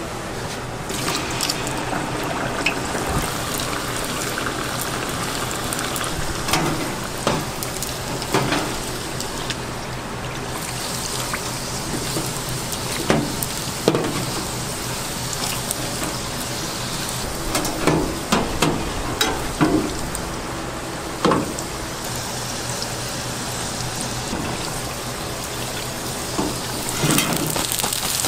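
Dumplings deep-frying in a steel fryer of oil, a steady sizzle, with scattered knocks of a metal mesh skimmer against the fryer.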